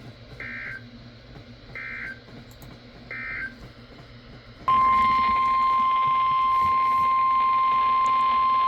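Emergency Alert System weather radio tones: three short warbling bursts of SAME digital end-of-message data, about a second apart, then a loud, steady 1050 Hz weather radio alert tone that starts abruptly about five seconds in and holds.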